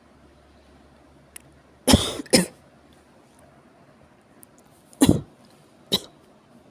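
A person with a severe cough coughing: a pair of coughs about two seconds in, then two more about three seconds later, the second pair spaced about a second apart.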